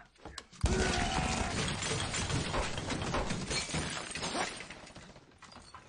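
A sudden loud crash about half a second in, then a dense clatter of breaking and shattering that fades over the next few seconds.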